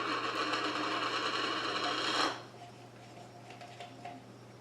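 Rapid rattling of packaging and small plastic parts being handled during unboxing, stopping abruptly a little over two seconds in.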